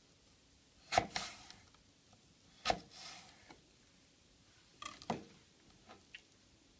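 Kitchen knife slicing down through a crisp raw apple and striking a plastic cutting board twice, each stroke a sharp tap with a short crisp crunch. A couple of lighter clicks follow about two seconds later as the knife is set down on the board.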